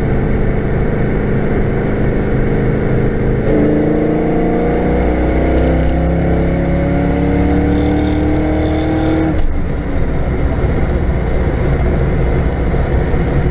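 Ford Fox-body Mustang's 5.0-litre (302) V8 in fourth gear: it runs steadily, then about three and a half seconds in goes to full throttle and the revs climb steadily for about six seconds. The throttle then closes abruptly and the engine runs on at a steady lower note. This is a wide-open-throttle pull without nitrous.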